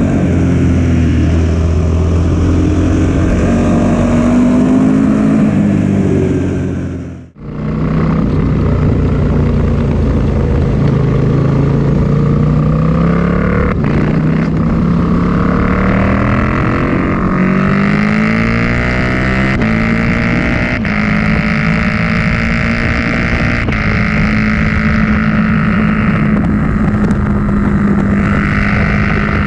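KTM 790 Duke parallel-twin engine running through an aftermarket Akrapovic muffler taken from a Yamaha R6, ridden on the road. The revs climb and drop in steps through gear changes, with a brief dropout about seven seconds in, then settle to steady cruising revs near the end, with wind rush throughout.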